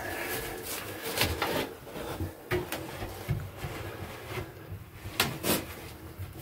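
Handling noise of wood and cloth: several light knocks and scrapes as a padded cushion is gripped and shifted against a wooden door and frame, the sharpest knocks about a second in and again around five seconds in.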